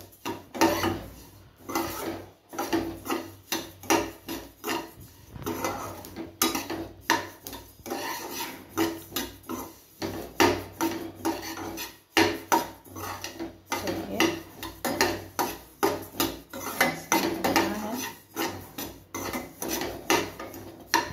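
Steel slotted spatula stirring sesame seeds as they dry-roast in a nonstick kadai: repeated scraping strokes of the spatula across the pan, about two a second, with the seeds sliding and rasping against the metal.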